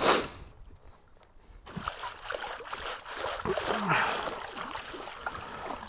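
Shallow water sloshing, splashing and trickling as a detectorist wades and digs in it. There is a sharp rush of noise right at the start, then after a quiet second an uneven run of small splashes and trickles.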